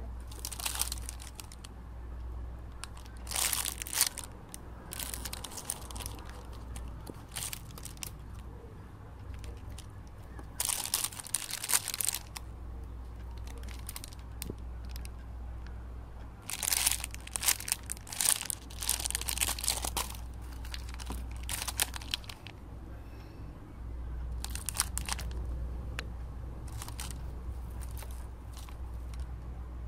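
Clear plastic packaging bags crinkling in irregular bursts as they are handled and opened, over a low steady hum.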